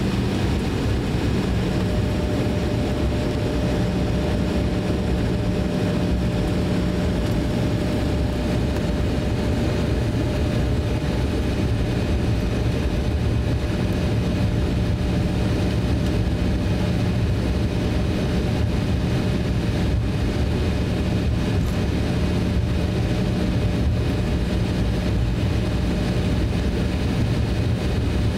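Cabin noise of an Embraer E170 jet taxiing: a steady low rumble from its engines at taxi power. A steady whining tone joins about two seconds in.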